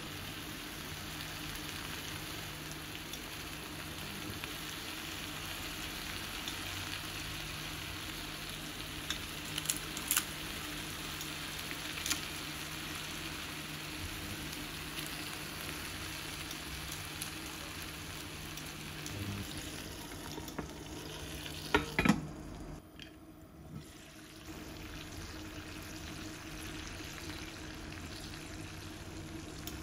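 Ground-meat patty and potato chips frying in oil in a pan, a steady sizzle with a few light clicks and taps. The sizzle drops away briefly about three-quarters through.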